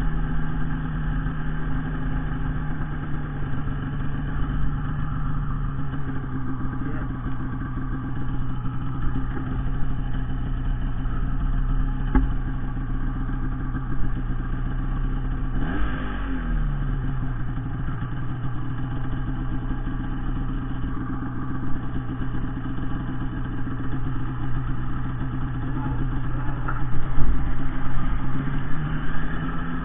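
Arctic Cat M8000 snowmobile's two-stroke twin engine running under throttle while carving through deep powder. The engine pitch drops a little early in the clip, dips sharply and climbs back about halfway through as the throttle is let off and reapplied, and rises again near the end.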